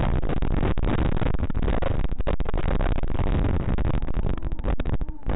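Static hiss from an analog FPV goggle recording. The sound is cut off above a low ceiling and broken by many brief dropouts as the video signal breaks up.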